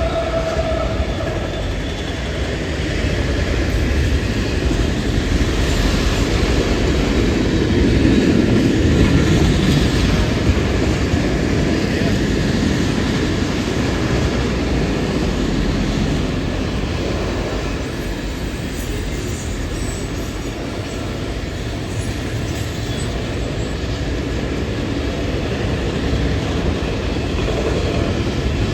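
A train rolling past on the track, a steady rumble of wheels on rails that swells to its loudest about a third of the way through and then eases off somewhat.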